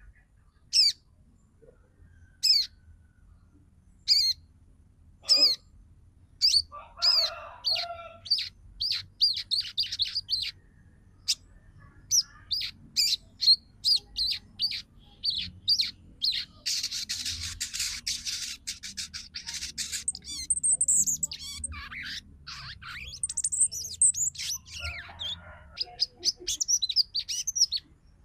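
Female crimson sunbird (sogon) calling: sharp, high chips, spaced out at first, then quickening into a rapid chattering trill. A dense, buzzy run comes about two-thirds of the way through.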